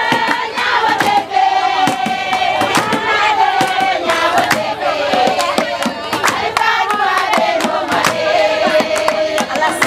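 A group of women singing together, with sharp hand-clapping throughout.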